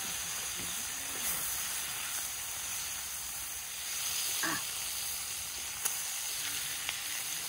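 Steaks sizzling and frying in a pan on a portable gas camping stove, a steady hiss, with a couple of light clicks near the end.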